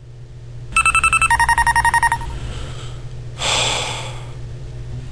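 Electronic alarm beeping rapidly, about ten short beeps a second, on a higher pitch and then a lower one, for just over a second. About a second later comes a short rush of noise, over a low steady hum.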